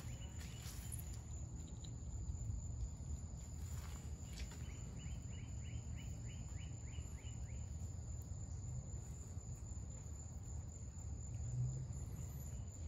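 Outdoor ambience: a steady high-pitched insect drone over a low steady rumble, with a rapid run of short chirps, about four or five a second, starting about a third of the way in and lasting a couple of seconds.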